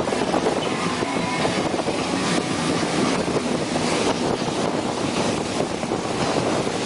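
Motorboat under way: steady wind buffeting the microphone over the rush of water along the hull and engine noise.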